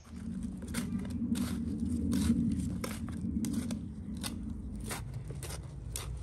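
Repeated short scraping strokes, about two a second, over a low rumble that fades about five seconds in.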